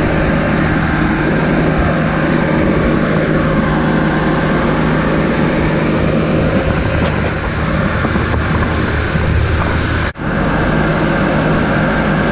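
An engine running steadily, with a brief dropout about ten seconds in.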